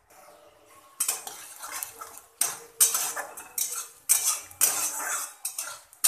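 Metal spatula scraping and clanking against a metal kadai (wok), stirring sliced onions frying in oil, in a run of repeated strokes that starts about a second in.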